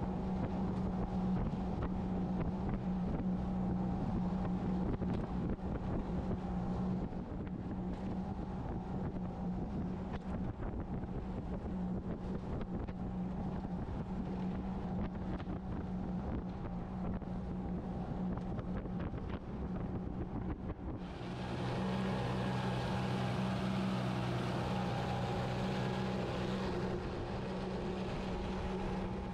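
Yamaha 90 hp outboard motor running steadily with the boat under way, a constant engine drone. About two-thirds of the way in, the sound jumps to a brighter, louder rush of spray and wind over the motor, and a deeper engine note joins.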